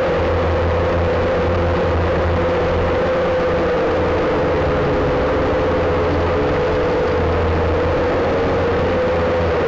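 Steady buzzing whine of the WLtoys V222 quadcopter's small electric motors and propellers in flight, recorded by its onboard camera, with a low rumble underneath; the pitch wavers slightly as the throttle shifts.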